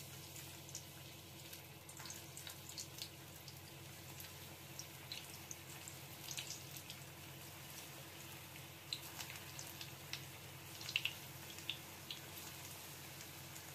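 Cauliflower kofta balls deep-frying in hot oil in a kadhai: a steady sizzle with scattered small pops and crackles, a few sharper pops a little after the middle. A faint steady hum runs underneath.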